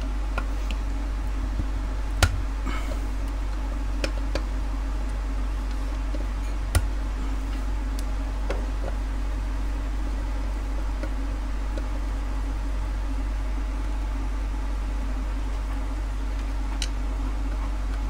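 A screwdriver clicking and knocking against a washing machine motor's carbon-brush holder as the brush is prised out, with two sharp knocks about two seconds in and again near seven seconds and a few lighter ticks, over a steady low hum.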